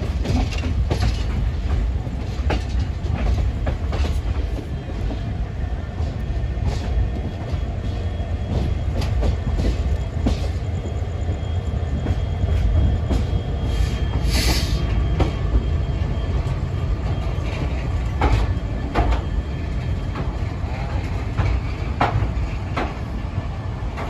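Passenger express train running slowly into a station, heard from an open coach door: a steady rumble with the wheels clicking and clattering over rail joints and points. A brief high-pitched burst comes about halfway through.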